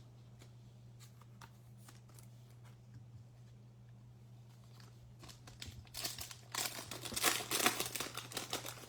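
A trading card pack's wrapper being torn open and crinkled, loudly and with many sharp crackles, starting about six seconds in, after a few faint clicks. A steady low electrical hum runs underneath.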